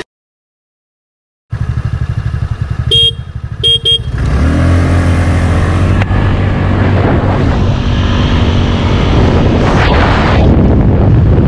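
About a second and a half of silence, then a Suzuki Avenis 125 scooter's single-cylinder engine idling, a horn beeping three short times, and the scooter pulling away at full throttle: the engine note rises about four seconds in and then runs steady and loud under growing wind noise as it gathers speed.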